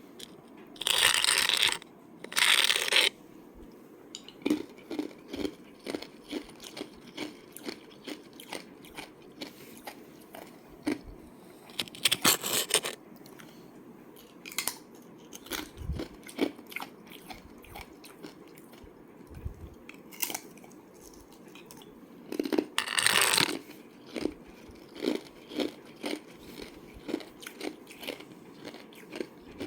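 Thin slab of ice being bitten and chewed close to the microphone. Four loud crunching bites, two close together near the start, one near the middle and one about three-quarters through. Between them come many short chewing crunches, some in runs of about two a second.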